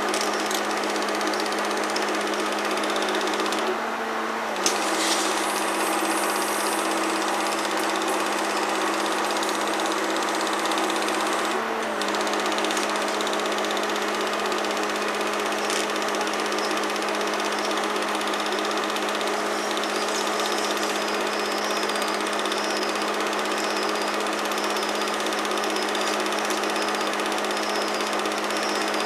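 Film projector running: a steady motor hum under a fast mechanical clatter, with two brief dips, about four seconds in and near twelve seconds.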